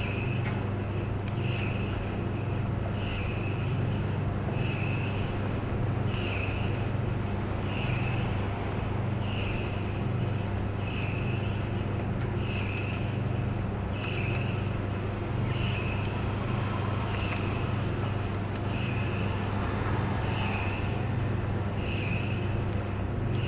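Clothes dryer running: a steady low motor hum with a short high squeak repeating about every second and a half, and faint scattered ticks.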